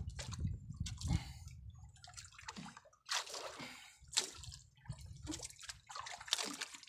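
Water dripping and splashing in short, irregular bursts as a wet fishing line is hauled in hand over hand.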